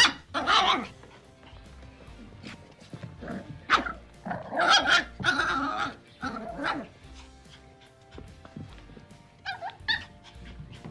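Puppies yipping and barking in short bursts, a run of several about four to seven seconds in and two quick ones near the end, over soft background music.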